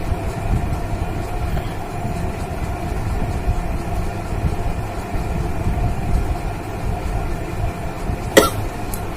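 A steady low rumble, then near the end one short, sharp cough-like burst of breath from a woman trying to make herself sneeze.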